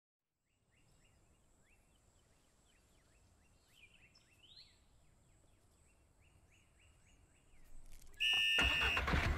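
Faint nature ambience from a film soundtrack after a moment of silence: short falling chirps repeating a few times a second over a steady high whine, with one brief rising call about four seconds in. About eight seconds in, a much louder passage of sustained tones and knocks cuts in.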